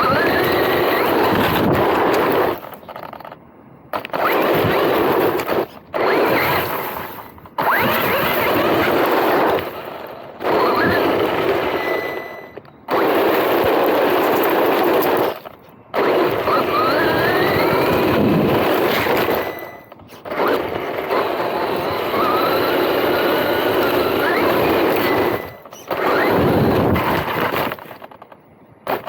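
MJX Hyper Go 16212 brushless 4WD RC car driving in short runs: a loud, gritty rush of tyres and drivetrain over rough ground, with a faint motor whine rising and falling with the throttle. The runs break off suddenly about every two to four seconds.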